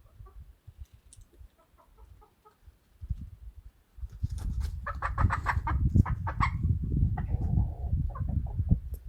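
Domestic hens clucking: soft scattered clucks at first, then from about four seconds in a quick run of louder clucking calls over a low rumble.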